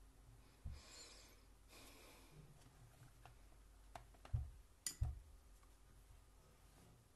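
Quiet room with a few soft handling knocks on a desk: one near the start with a brief papery rustle after it, then a sharp click and two louder knocks around the middle, as the painting and its materials are moved.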